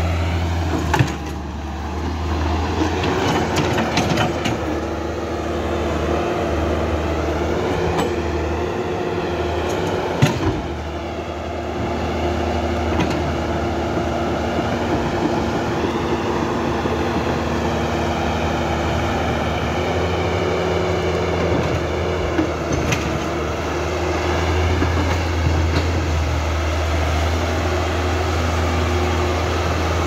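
Huina 1550 remote-control excavator working: a steady low engine-like drone with a higher whine that rises and falls as it moves, and sharp knocks about a second in and again about ten seconds in.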